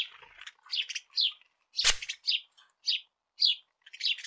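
Cartoon birdsong: short high chirps every half second or so. About two seconds in there is one louder hissing puff, a spritz from a perfume atomizer's squeeze bulb.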